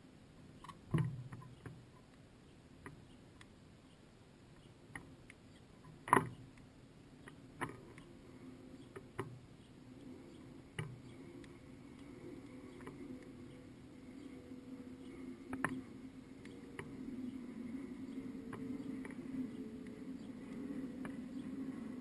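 House sparrow feeding at a seed-filled bird feeder, its beak and feet knocking against the seed and feeder in scattered sharp taps and clicks, the loudest about six seconds in. A low steady hum grows louder beneath them in the second half.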